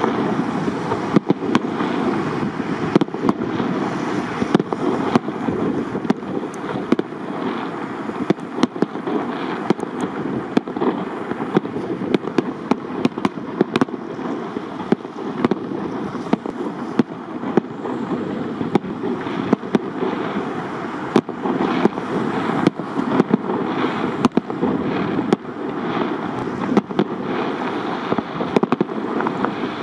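Aerial fireworks display: shells bursting in an irregular barrage of sharp bangs, at times several a second, over a steady rushing noise.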